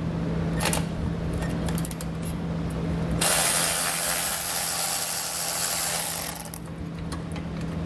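Cordless ratchet with a T40 Torx bit backing out a bolt: a few sharp clicks, then the motor runs steadily for about three seconds and stops about six and a half seconds in.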